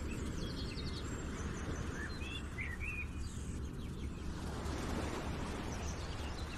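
Steady outdoor background noise with a few short bird chirps about two to three and a half seconds in.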